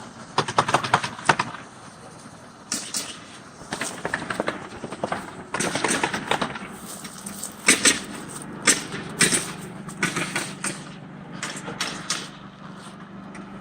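Irregular sharp knocks and clicks, some in quick clusters, over a faint steady low hum.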